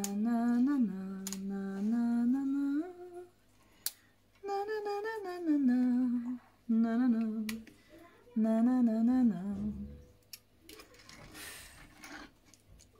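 A woman humming a tune to herself in several short phrases, with held and sliding notes and pauses between them. A short, soft noise follows near the end.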